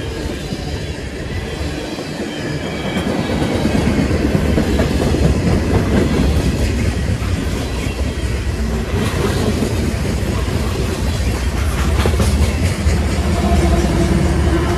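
Freight train passing close by: tank cars and gondolas rolling past with a steady rumble and wheels clicking over the rail joints, getting louder about three seconds in. Near the end the mid-train GE ES44AC diesel locomotive draws level, adding a steady engine hum.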